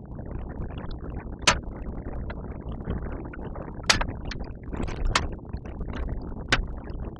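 Sharp clicks and taps from handling a laptop's parts during disassembly, about five, spaced irregularly, over low rustling.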